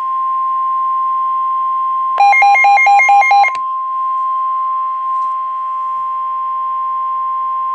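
NOAA Weather Radio 1050 Hz warning alarm tone: a loud, steady single tone over faint radio hiss. About two seconds in, a burst of rapid alternating beeps sounds on top of it for just over a second.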